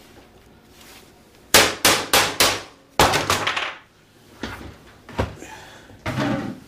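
A series of sharp knocks and bangs: four in quick succession about a second and a half in, a few more around three seconds, then two lighter single knocks and a short rougher sound near the end.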